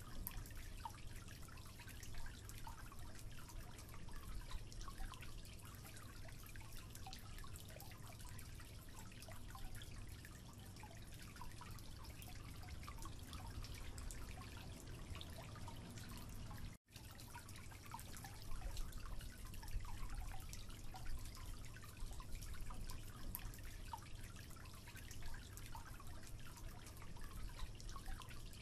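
Water dripping from a leaking tap into a concrete sink: faint, scattered small drips over a steady low rumble. The sound cuts out for an instant about two-thirds of the way through.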